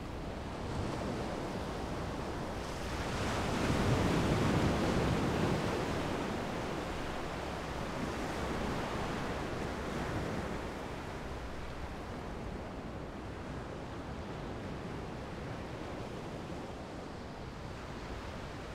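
Small sea waves washing onto a beach, a steady surf hiss that swells to one louder surge about three to six seconds in, with some wind.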